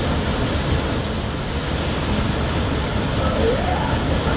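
Waterfall pouring, a steady heavy rush of water close by. A faint voice calls out briefly about three seconds in.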